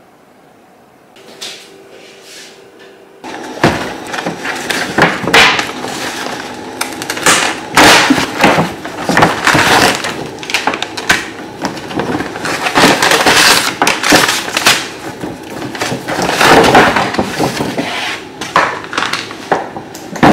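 Brown paper pharmacy bag and the plastic-wrapped items and foil pouch inside it crinkling and rustling loudly as they are pulled out, in a dense, irregular run of crackles. This starts about three and a half seconds in, after a faint steady hum.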